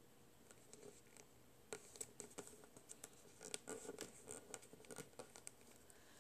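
Faint crinkling and clicking of a folded sheet of origami paper being handled and creased by fingers, a run of small irregular clicks that is busiest from about two seconds in to about five seconds.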